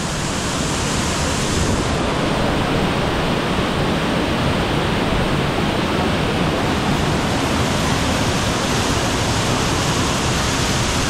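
Mountain stream cascading down a narrow limestone gorge, a loud, steady rush of falling water.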